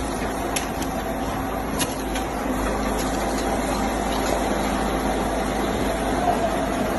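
Backhoe loader's diesel engine running steadily, a low continuous hum with a few faint clicks and knocks over it.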